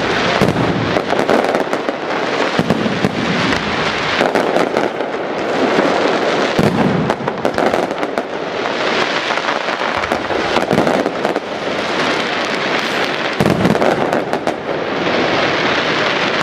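Aerial fireworks display: a dense, continuous crackle of many shells and effects going off together, swelling and easing in waves every few seconds.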